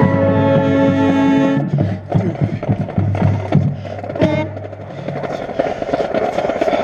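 Marching band playing: a held brass chord for about the first second and a half, then a busier passage of quick percussion hits and scattered brass notes.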